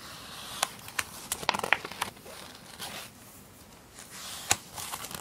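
Paper page of a large picture book being turned and handled: a crinkling rustle with several sharp crackles of the paper.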